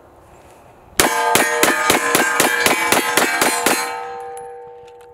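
FK BRNO Field Pistol in 7.5 FK fired as a rapid semi-automatic mag dump: about eleven loud shots at roughly four a second. A metallic ringing hangs on under the shots and fades slowly after the last one.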